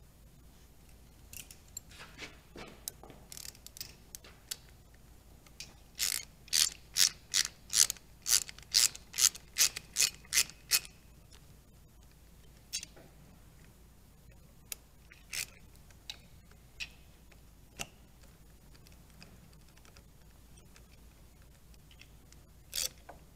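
Ratchet wrench clicking as the Allen bolts of a front sprocket retaining collar are tightened: a run of about a dozen quick clicks in the middle, with scattered single clicks before and after.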